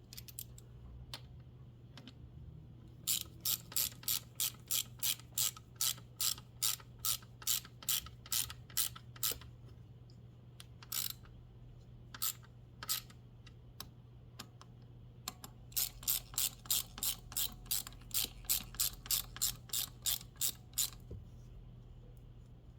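Hand ratchet wrench clicking as it is swung back and forth, turning a fastener. It comes in two long runs of evenly spaced clicks, about three a second, with a few single clicks between them.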